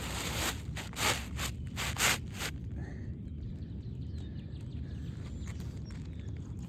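Quick scraping and rustling strokes of hands and material being worked on an asphalt shingle roof, a handful in the first two and a half seconds, the loudest about one and two seconds in, over a steady low rumble.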